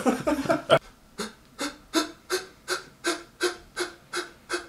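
A person breathing heavily and rhythmically for comic effect: short voiced pants, about three a second, starting about a second in after a brief burst of voice.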